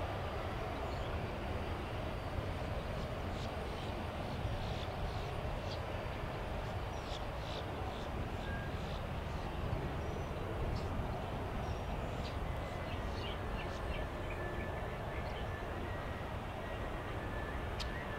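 Steady distant rumble of an Airbus A350 jet airliner's engines on final approach, with birds chirping over it.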